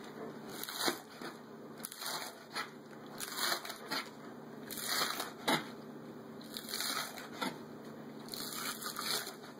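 A chef's knife chopping green onion stalks into half-inch pieces on a cutting board: a run of irregular crunchy chops, about two a second, each ending in a knock of the blade on the board.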